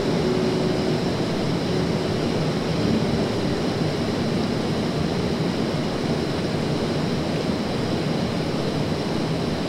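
Steady rush of flowing creek water, an even hiss and rumble that holds the same level throughout.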